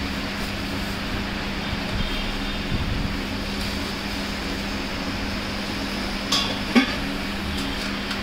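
Steady mechanical hum and hiss with a constant low tone, with two short sharp crackles about six and a half seconds in.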